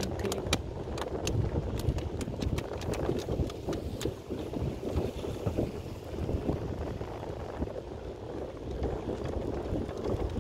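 Pick-up truck driving slowly over a rough concrete jetty: a steady low rumble of engine and tyres with wind buffeting the microphone, and a run of sharp clattering knocks in the first four seconds.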